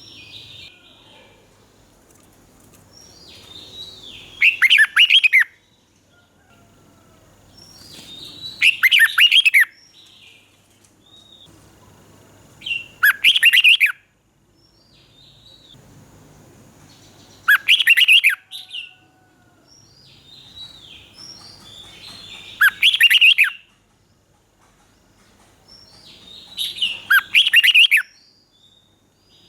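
Red-whiskered bulbul singing: a loud, rapid warbled song phrase repeated six times, about every four to five seconds, with softer chirps between the phrases.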